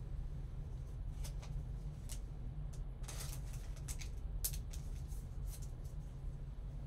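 Soft scrapes and rustles of a trading card and a clear plastic card holder being handled with gloved hands: about six short scrapes, the longest a little after three seconds in, over a steady low hum.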